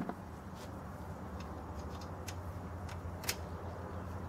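A few short, sharp metal clicks as the carburetor and throttle linkage of a small lawn tractor engine are handled, the loudest about three seconds in, over a steady low rumble.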